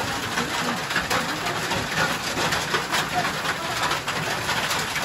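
Hailstones pelting down hard: a dense, steady clatter of many small impacts.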